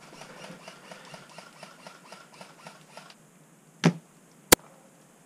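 Airsoft gun sounds: a quick, even run of clicks for about three seconds, then one heavy thump and, about half a second later, a single sharp crack.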